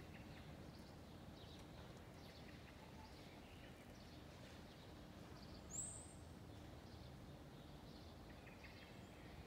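Near silence: faint outdoor ambience with scattered faint bird chirps, and one brief, louder high chirp just past the middle.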